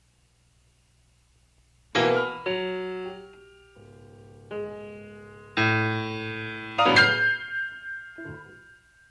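After about two seconds of near silence, a piano plays slow, separate chords, each struck and left to ring away. The loudest come about two seconds in and about seven seconds in, and a high note rings on after the last big chord.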